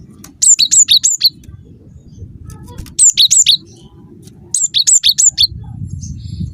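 Cinereous tit (gelatik batu) singing: three quick phrases of four or five high, sharply down-slurred whistled notes each, about a second apart, over a low background rumble that swells near the end.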